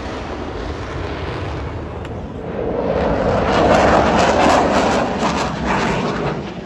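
Aircraft engine noise from a plane flying overhead, a steady roar that swells to its loudest about four seconds in and then eases slightly.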